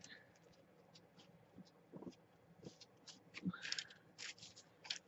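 Fingers pressing and rubbing a damp paper transfer down onto a sheet of paper: faint scattered rustles and scratchy ticks with a few soft taps, busier near the end.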